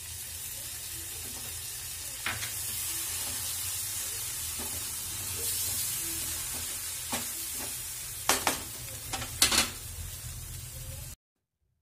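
Wet tomato and green chilli paste sizzling as it hits hot oil and masala in a frying pan, while a slotted spatula scrapes and knocks against the pan, stirring it in; the sharpest, loudest scrapes come near the end. The sound cuts off suddenly just before the end.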